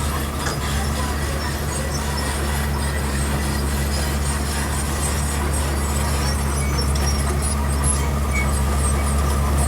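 Heavy diesel engine of construction machinery running steadily with a deep low drone, growing slightly louder toward the end.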